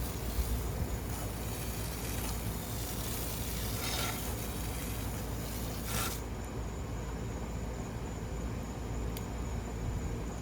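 Backyard wood fire with wind gusting across it, a hiss for about the first six seconds over a steady low rumble of wind, and a few sharp pops from the burning wood. Crickets sing steadily throughout, plain once the gust dies down.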